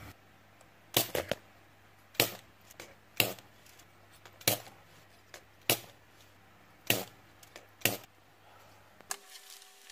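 Manual spring-loaded desoldering pump (solder sucker) firing again and again, a sharp snap about once a second, as the solder is sucked off the pins of an STK hybrid amplifier IC one by one.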